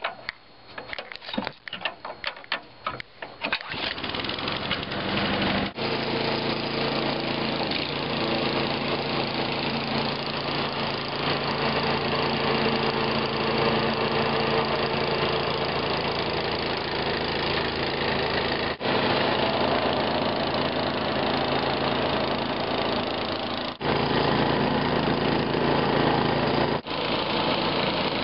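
Gas-powered two-stage snowblower engine being started: about three seconds of rapid clattering, then the engine catches. It then runs steadily while the auger and impeller throw snow, with a few short gaps.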